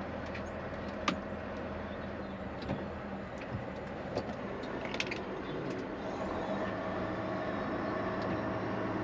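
Semi truck's engine running with road noise, heard from inside the cab as it moves slowly, growing a little louder in the second half, with a few faint clicks.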